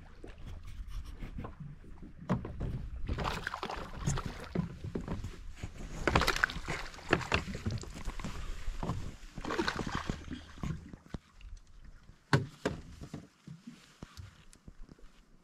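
A hooked small bass splashing at the water's surface beside a boat as it is reeled in and lifted out by hand, in several bursts of splashing. A low rumble sits under it, and there is one sharp knock near the end.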